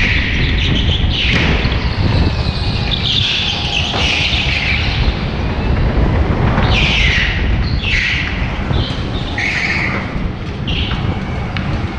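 Go-kart engine running hard, heard on board, with repeated short squeals of kart tyres sliding through the corners on a polished indoor track floor.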